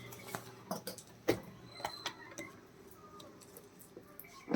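Handling noise: a series of scattered clicks and light knocks of objects being picked up and set down, the loudest about a second in.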